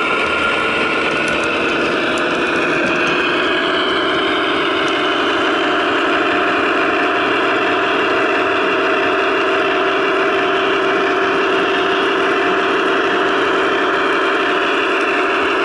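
HO scale Broadway Limited Imports GE AC6000CW model diesels playing their recorded sixteen-cylinder turbo-diesel engine sound through onboard Paragon 2 speakers. The engine sound runs steadily, rising slightly in pitch over the first few seconds and then holding.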